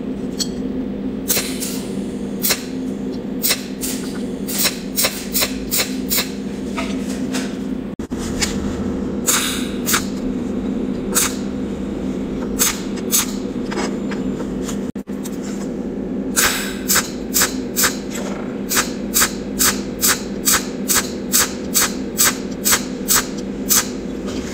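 Cold welding machine firing short pulses, each a brief sharp crackle as the electrode tacks a spot weld on the seam, over a steady electrical hum. In the last third the pulses come evenly, about twice a second, as the overlapping spots are laid along the joint.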